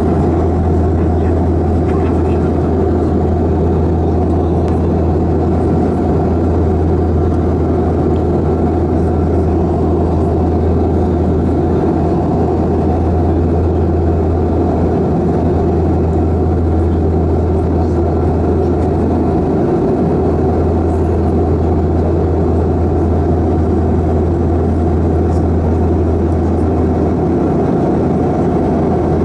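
Airliner cabin noise on approach with the landing gear down: the steady drone of the engines, a low hum under a broad rushing of airflow, unbroken throughout, with a brief dip in the hum about twenty seconds in.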